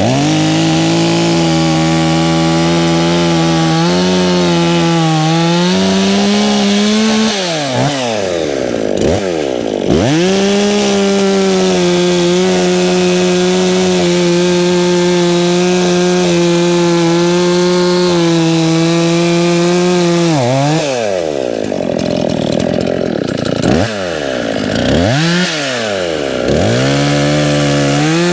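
Chainsaw running at high speed, its pitch held steady for long stretches, then dropping and climbing back up several times as the throttle is let off and reapplied.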